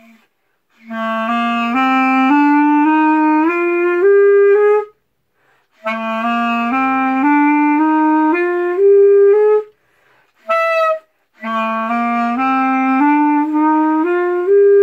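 Clarinet playing a rising stepwise run of notes, about an octave, three times over with short breaths between, plus one brief higher note between the second and third runs.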